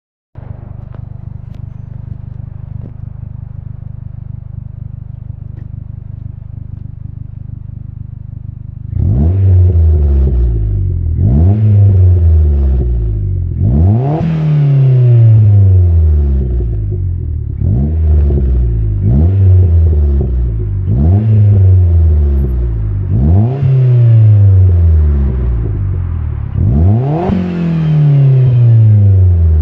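Mitsubishi Colt Ralliart's 1.5-litre turbocharged four-cylinder through a non-resonated Scorpion cat-back exhaust, idling steadily for about nine seconds, then blipped about eight times, each rev rising sharply and falling back to idle.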